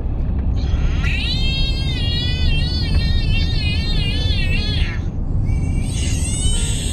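Steady road and engine noise inside a moving car. A high, wavering warble sounds over it for about four seconds from a second in, and a shorter one comes near the end.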